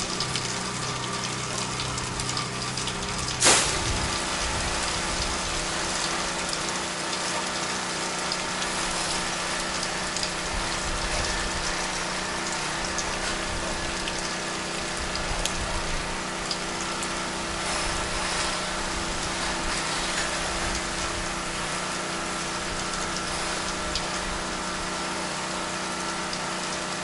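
Pressure washer running steadily, with water hissing from the wand as solution is sprayed onto vinyl siding. One sharp snap about three and a half seconds in, after which the machine's steady hum settles to a different pitch.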